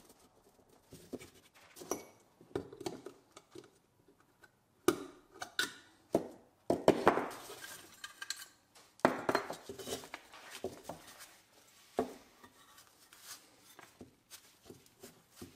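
Irregular light metal clinks, taps and scrapes as the pressed-steel stake bed of a Mini Tonka toy truck is worked apart by hand from its rivetted floor plate.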